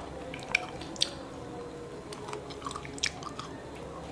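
Close-up mouth and hand sounds of eating soft, juicy motoa fruit: the peel being pulled apart by hand and the flesh chewed, heard as a few sharp wet clicks, the clearest about half a second, one second and three seconds in.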